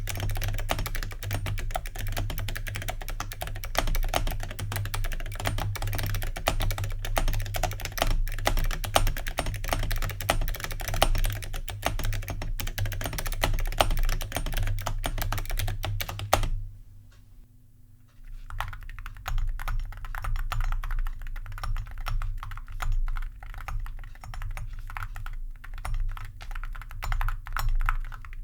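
Continuous typing on metal keycaps, which the owner suspects are zamak, fitted to a keyboard with ZealPC clicky switches: loud and clicky. About sixteen seconds in it cuts off suddenly. After a brief quiet gap comes quieter typing on the same metal keycaps over linear switches in a stiff Keychron chassis.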